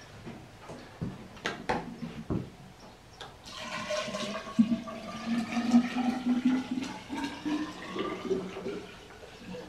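Potassium hydroxide electrolyte poured from a plastic jug into the clear tube of a homemade HHO hydrogen generator. A few knocks come first, then from about three and a half seconds in a steady splashing pour with a ringing tone in it.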